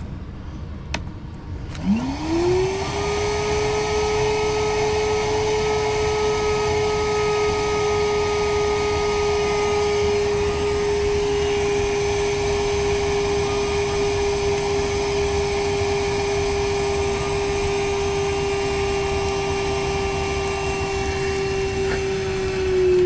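Cordless battery-powered wet/dry vacuum switching on about two seconds in, its motor whine rising quickly and then holding steady, as it sucks on an AC condensate drain line. Its pitch sags a little near the end, with the battery running low.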